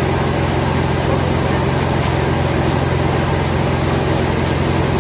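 A motor running steadily with a loud, even low drone.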